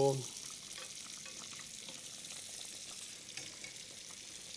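Saddles of hare sizzling as they sear in hot butter and oil in a roasting pan, with faint clinks of a fork and spoon against the pan.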